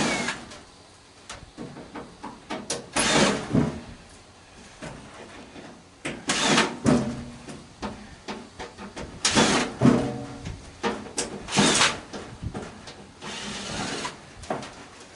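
Sheet-metal parts of an old microwave clanking and scraping as it is taken apart, in irregular bursts, some with a brief metallic ring.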